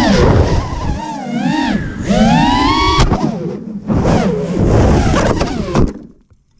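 StiffLITE FPV racing quadcopter's brushless motors and propellers whining, heard from the onboard camera, the pitch rising and falling sharply with the throttle, with a sharp tick about three seconds in. Near the end the motor sound cuts off suddenly as the drone goes down into brush.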